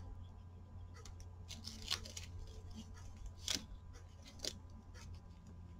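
Faint handling sounds of latex-gloved hands working small resin flowers and a small alcohol-ink bottle: a few soft clicks and rubs, the sharpest about three and a half seconds in, over a steady low hum.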